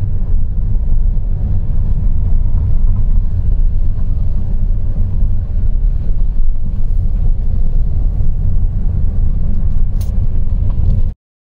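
Steady low rumble of a vehicle driving along a rough gravel mountain road, with road and engine noise mixed with wind buffeting the microphone. It cuts off abruptly near the end.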